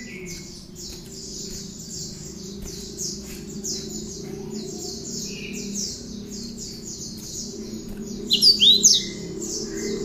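Cinereous tit (gelatik batu) singing a fast, steady run of high repeated chips, several a second, the ciblek-style chatter it has learned. A little after eight seconds a louder cluster of sharp down-slurred whistles stands out.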